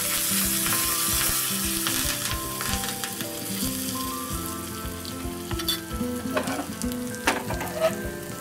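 Curry leaves crackling and sizzling in hot oil and ghee with dried red chillies, cumin and urad dal as the tempering is stirred with a spoon. The sizzle is strongest over the first couple of seconds and then dies down, and a few sharp clicks of the spoon against the pan come near the end.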